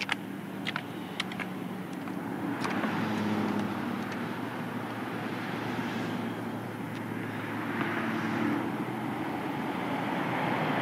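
Street traffic: cars passing, a steady rumble and hiss that swells about three seconds in and again around eight seconds, with a few light clicks in the first second and a half.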